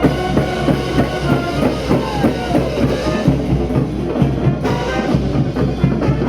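Street brass band playing: horns holding and sliding between notes over a steady drum beat with bass drum.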